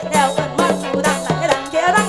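Isan mor lam band music in the lam klon prayuk style: a melody with sliding notes over a quick, steady beat and bass.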